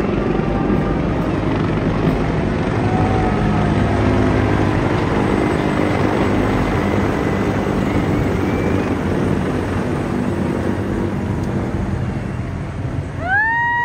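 Three CH-53-type heavy-lift helicopters flying low overhead, a dense rotor and engine drone that slowly fades as they pass. Just before the end a loud high tone with a sliding-up start comes in and holds.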